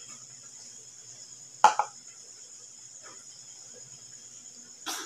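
A steady high-pitched buzz, with one sharp knock about a second and a half in and a softer knock near the end.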